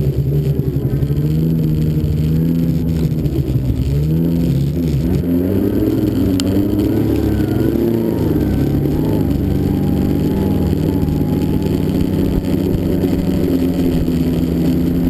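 Snowmobile engine running loudly, its pitch dipping and rising unevenly through the middle as the throttle changes.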